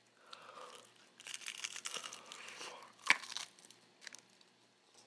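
Crispy crust of a Jollibee Chickenjoy fried chicken piece crunching and tearing as it is bitten into, with a run of crackles and one sharp, loudest crunch about three seconds in.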